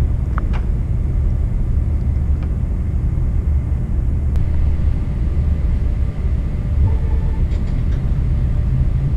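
Stratasys F123-series 3D printer running with a steady low hum and rumble as its heated head starts moving to purge material, with a few faint ticks and a brief faint motor tone near the end.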